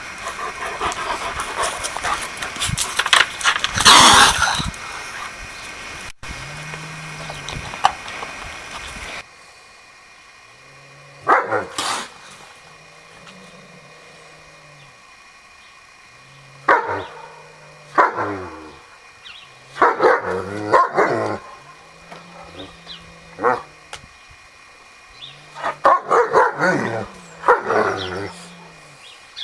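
German Shepherd-type dog barking in short, separate barks a second to several seconds apart. The first part is instead a steady noisy hiss with a loud burst about four seconds in.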